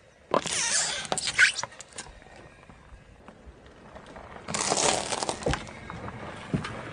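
Car tyre rolling over and crushing brittle objects: two bursts of crunching and crackling with sharp snaps, the first a moment in and lasting about a second and a half, the second shorter, past the middle.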